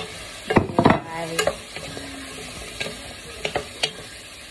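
Capsicum and snake beans sizzling in a frying pan as they are stirred, with a utensil knocking and scraping against the pan, the loudest knocks about half a second to a second in.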